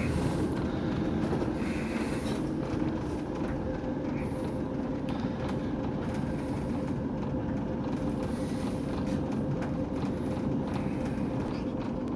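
TEP70 passenger diesel locomotive under way, heard from on board: a steady drone of engine and rail running noise with a constant hum-like tone through it and a few light clicks.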